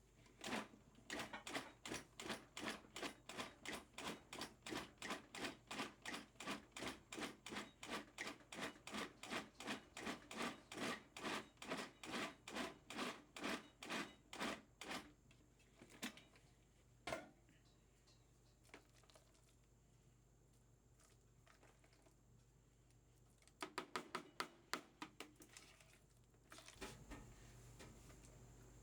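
A knife chopping on a cutting board in steady strokes, about three a second, for some fifteen seconds. A few single knocks follow, then a short, quicker flurry of chops.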